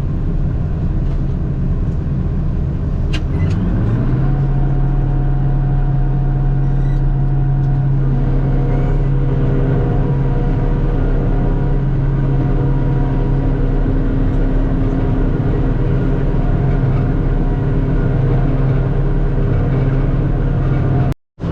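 Large diesel engine running, speeding up about three and a half seconds in and then holding steady at higher revs. The sound cuts out for a moment just before the end.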